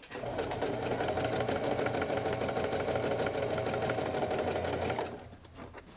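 Electric sewing machine running steadily at speed with rapid, even stitching as it sews the rounded end of a fabric strap; it stops about five seconds in.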